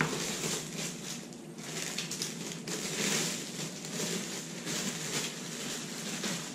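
Clear plastic film crinkling and rustling as it is pulled off a feeder fishing rod, uneven, loudest about three seconds in.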